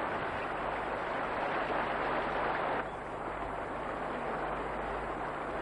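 Steady rushing outdoor field noise that dips slightly about three seconds in, over a faint low steady hum.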